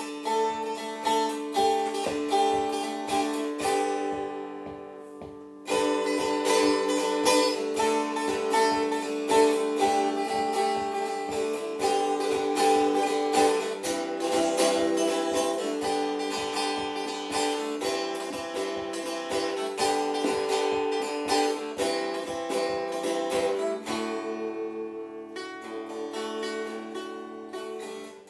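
Canjo (tin-can banjo) tuned to Irish GDAE tuning on new strings, played acoustically unplugged: a run of quickly picked notes and melody. There is a brief let-ring pause about four seconds in, and fast repeated picking on a few notes near the end.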